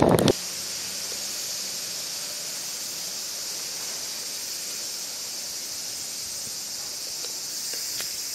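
A brief loud rumble cuts off suddenly at the start. It gives way to a steady, high-pitched chorus of insects, with a few faint ticks near the end.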